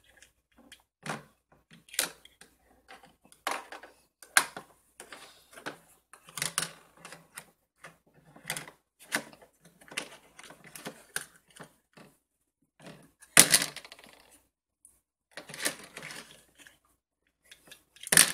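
Plastic toy cookware and utensils clacking and knocking on a toy kitchen stove: irregular taps and clatters, the loudest a little past the middle and right at the end.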